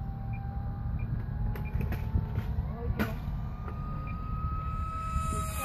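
Electric motor and propeller of a Great Planes Rifle 1M RC pylon racer whining in flight, its pitch rising slowly and then dropping sharply at the very end as it goes by. A low rumble runs underneath, with a single sharp click about three seconds in.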